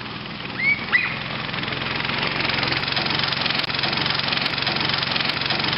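Small engine running steadily, growing louder over the second half. Two short high rising chirps about a second in.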